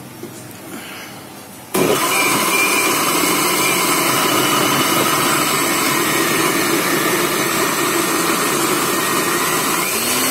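Electric blender switched on about two seconds in, then running steadily as its blades grind fried chillies and water into a smooth paste.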